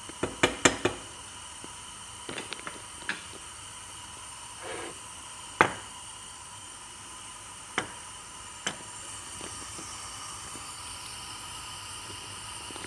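A wooden spatula rapped several times in quick succession against the rim of a stainless steel stockpot of thick soup. Scattered single clicks and knocks of kitchen utensils follow over a steady low hiss.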